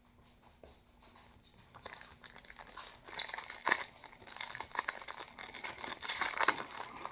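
Foil booster-pack wrapper crinkling and being torn open, starting about two seconds in, with irregular sharp crackles.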